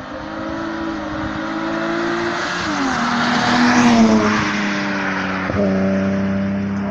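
Hill-climb race car coming up the road at full throttle and passing close by: the engine note climbs and grows louder, drops in pitch as it goes past about three seconds in, is loudest just after, then fades away.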